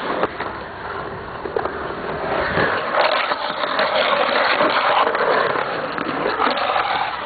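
Skateboard wheels rolling on the concrete of a skatepark bowl, a steady rumble with a few sharp clacks and a scrape of the board on the bowl's edge.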